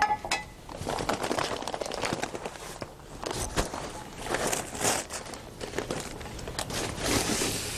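Paper cement bag crinkling and rustling, with scraping and crunching as cement powder is scooped out of it.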